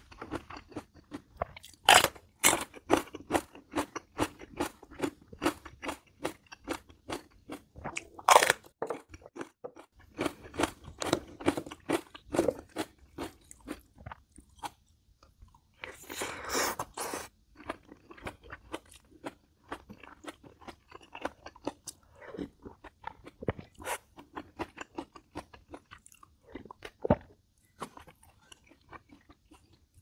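Close-miked chewing of a mouthful of bibimbap with crisp vegetables, a wet crunching about three chews a second. A few louder, sharper bites stand out, and there is a denser burst of crunching about halfway through.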